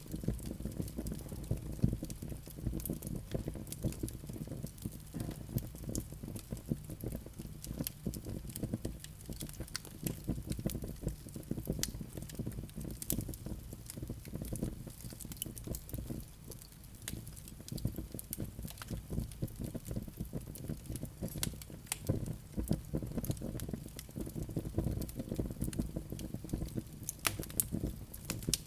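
Fireplace coals and flames burning and crackling: irregular sharp pops and ticks over a steady low rumble of the fire.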